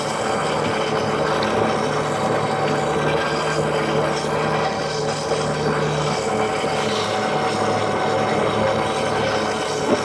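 Engine running steadily at a constant speed, with no change in pitch.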